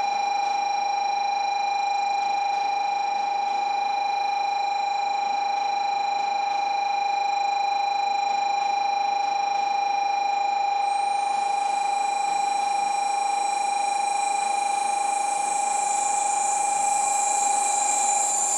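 A steady, unbroken electronic buzzer tone sounds throughout. From about eleven seconds in, a high hiss and a slightly rising whine build and grow louder as a Shinkansen bullet train pulls into the platform.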